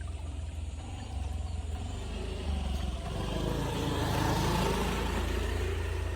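A motor vehicle passing by, growing louder to a peak about four seconds in and then fading, over a steady low rumble.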